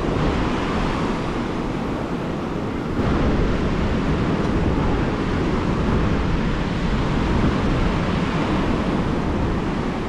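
Ocean surf breaking and washing up a sandy beach, mixed with wind rumbling on the microphone; the sound grows louder about three seconds in.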